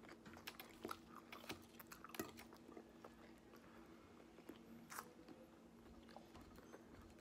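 Faint close-up chewing of a mouthful of dressed lettuce salad: soft crunches and wet mouth clicks scattered through, over a faint steady low hum.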